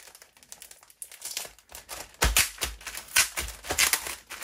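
Blind-bag packaging being torn open and crinkled by hand, a run of sharp crackles that grows dense and loud about halfway through.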